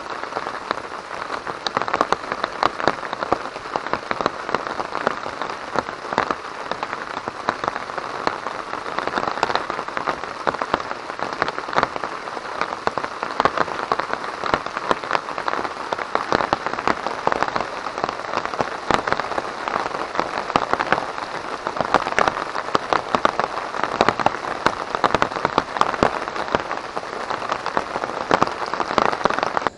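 Steady rain falling on a tarp shelter, with many sharp, irregular drop hits.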